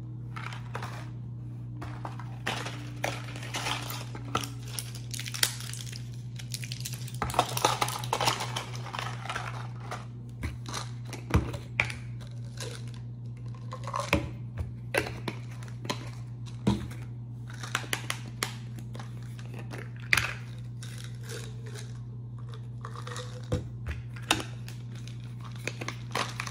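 Crinkling and rustling of packaging with scattered clicks and taps as supplement bottles and pill packets are opened and handled, over a steady low hum.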